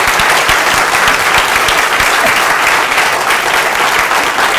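A lecture-theatre audience applauding, a steady dense clapping that holds throughout.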